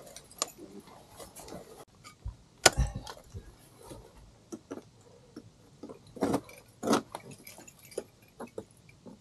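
Irregular sharp knocks and small metallic clinks of ice-climbing gear: ice tools and crampons striking ice or rock, with hardware jangling. The loudest knock comes about two and a half seconds in, and two more strong ones come about a second apart near the end.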